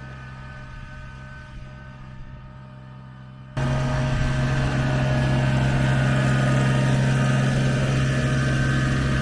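Kubota BX23S subcompact tractor's three-cylinder diesel running at a steady speed while pulling a land plane. About three and a half seconds in, the engine sound jumps abruptly louder and stays there, the tractor close by.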